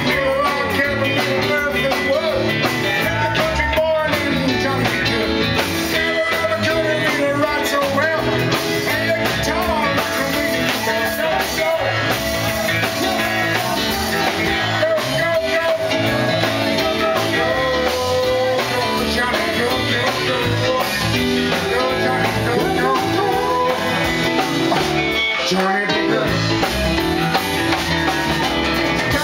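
Live rock band playing a song on electric guitar, bass, keyboard and drum kit, with a man singing.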